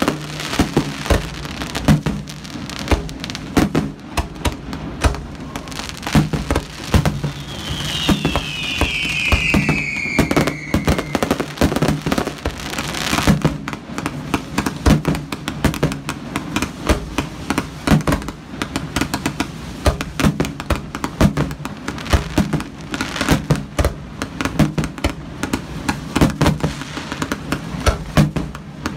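Aerial fireworks display: shell bursts going off in a rapid, near-continuous run of bangs, with a whistle falling in pitch about eight seconds in.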